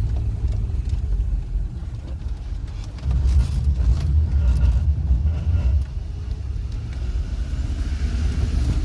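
Four-wheel-drive vehicle heard from inside the cabin while driving up a mountain dirt track: a steady low engine and road rumble that grows louder for about three seconds midway.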